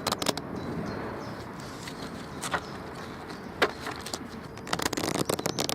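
Playing cards being shuffled by thumb, a fast flutter of card edges flicking near the start and again near the end, with a few single flicks and a steady hiss between.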